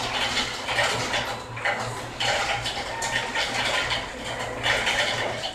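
Rustling and clattering of food packaging and utensils being handled while eating, in a series of irregular bursts over a steady low hum.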